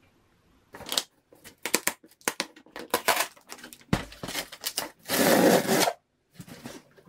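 Packing tape being peeled and ripped by hand off a cardboard box, in a series of short tearing pulls with cardboard scraping and tapping. The loudest is one longer rip lasting about a second, some five seconds in.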